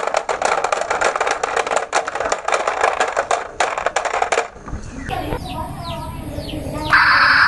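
Marbles clattering down a wooden marble run track: a dense run of rapid clicks that stops about four and a half seconds in. A different sound follows, with a few short falling chirps, and then a louder steady tone starts near the end.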